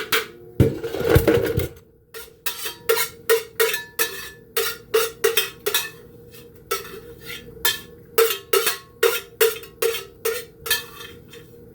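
Metal utensils clanking against metal kitchenware as grated ginger and garlic are scraped and knocked off: a louder scraping rattle in the first couple of seconds, then a steady run of sharp clinks, about three a second.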